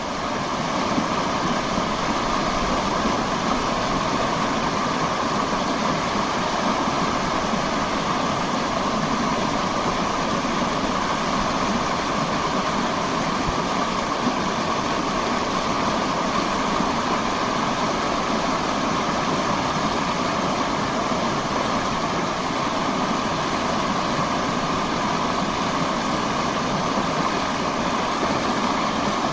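Subway train running between stations, heard from inside the car: a steady loud rumble and rush of wheels and motors, with no break.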